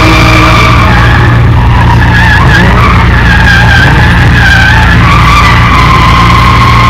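BMW M3 Compact rally car sliding sideways, its tyres squealing in a wavering howl over the engine held high in the revs. Loud enough to overload the recording.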